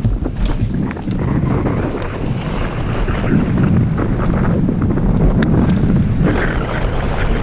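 Wind buffeting a GoPro's microphone while a downhill mountain bike is ridden over rough dirt, with a scatter of sharp clicks and rattles from the bike and ground.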